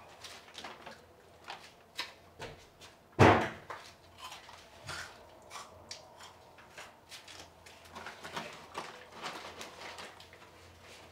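A door being handled: a run of light clicks and knocks, with one loud bang about three seconds in.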